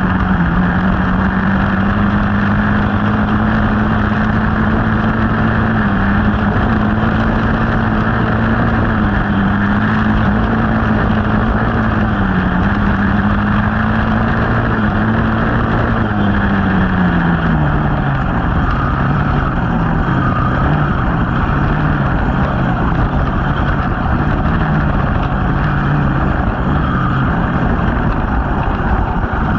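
Dirt bike engine running steadily under way, its pitch holding then dropping about two-thirds of the way in as the bike slows, over a constant rush of wind on the microphone.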